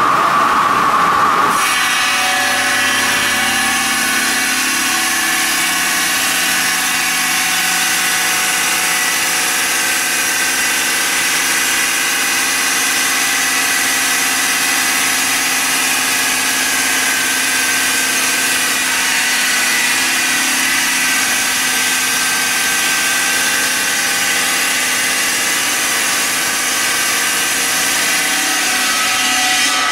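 Large circular saw blade of a Julun SQC/PC-1200 bridge block cutting machine cutting through a stone block under a water spray. It gives a loud, steady grinding hiss with several steady tones running through it, and it changes character about a second and a half in.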